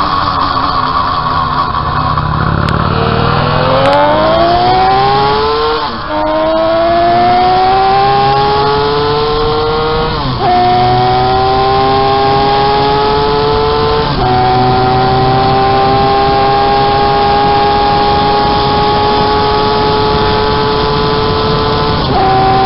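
Home-built three-cylinder engine of a 195cc Gillette special motorcycle at full throttle, its note climbing through the gears. It shifts up four times, each a short dip in pitch before the next climb, and the climbs grow slower in the higher gears.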